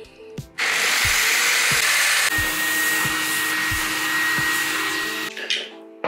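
Power drill boring a bolt hole through the steel floor panel of a van. It starts about half a second in and stops near the end, with a steady high whine joining about two seconds in. Background music with a steady beat plays underneath.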